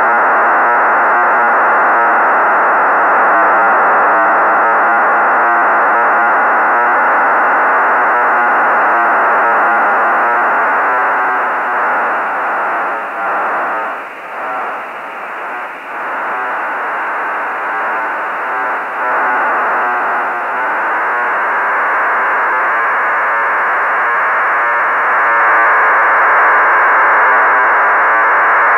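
Receiver audio of HuskySat-1's BPSK telemetry downlink: a harsh, buzzing data signal over radio hiss, held within a narrow voice-radio band. Roughly halfway through it fades and flutters for a few seconds, then comes back strong.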